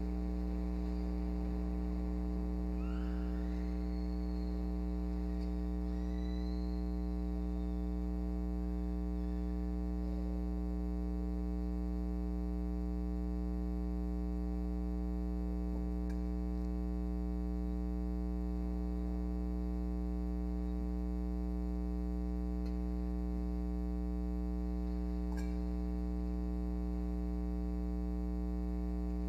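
Steady electrical mains hum with a long ladder of overtones, unchanging throughout. A few faint rising tones come about three to seven seconds in, and a faint click about 25 seconds in.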